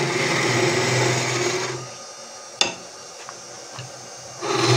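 Hollowing tool cutting into the end grain of palm wood turning on a wood lathe: a steady hiss of the cut over a low hum. The cut stops about two seconds in, a sharp click follows, and the cutting resumes near the end.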